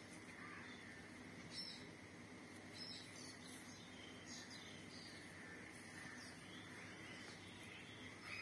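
Faint outdoor background: a steady high insect hum with short bird chirps now and then.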